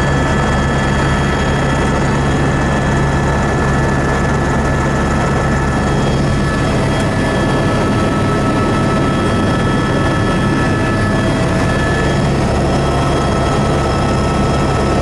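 Helicopter in flight, heard on board: a loud, steady drone of engine and rotor, with a few steady whining tones above it.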